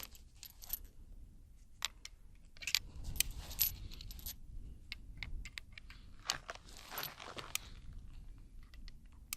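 Metallic clinks and clicks of .45 Colt cartridges being handled and loaded one at a time into an old-model Ruger Vaquero single-action revolver. The sharp clicks come in two clusters, about three seconds in and again about seven seconds in.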